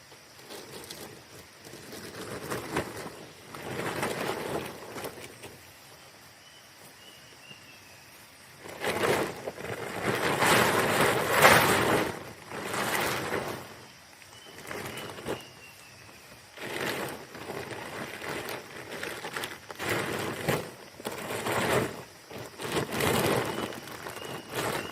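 Rustling and scraping noises in irregular bursts of about a second each, loudest about ten seconds in. Under them runs a steady high insect hum with a few faint bird chirps.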